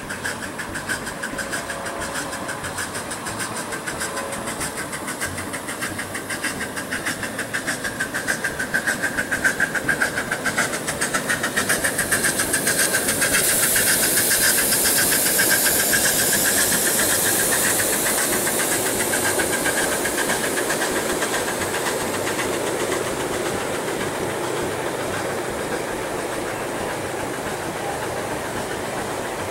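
Scale-model train running on the track, with a fast, even beat and a hiss that swells to its loudest about halfway through, then eases off.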